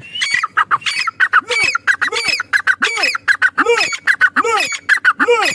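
Female francolin (teetar) calling: a rapid run of harsh notes, with arched rising-and-falling calls repeated about once every three-quarters of a second and quick sharp notes packed between them.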